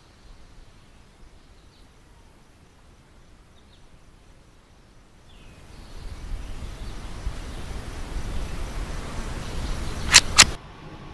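Two sharp cracks about a quarter second apart, shots from a .22 rifle, at the peak of a swelling rush of noise that cuts off abruptly right after them. Before that there are only a few faint short chirps.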